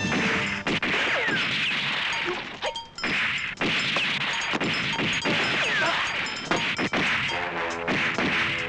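Fight-scene sound effects: a rapid run of punch and blow impacts over background action music, the music coming forward near the end.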